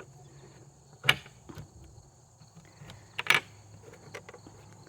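Wooden coop door, stuck because the wood has swelled from rain, being tugged at: a sharp knock about a second in and a louder one about three seconds in, with a few lighter clicks. Insects drone steadily and high-pitched throughout.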